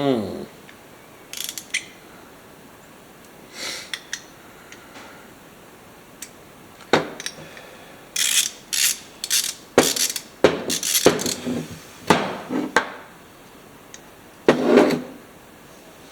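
Intermittent clicks and metallic clatter of small carburetor parts and hand tools being handled, in scattered bursts that are thickest in the second half.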